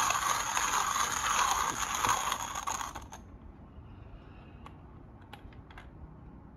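1Zpresso JX-pro hand coffee grinder crunching beans as its crank is turned, a dense crackling that stops abruptly about three seconds in, followed by a few faint clicks.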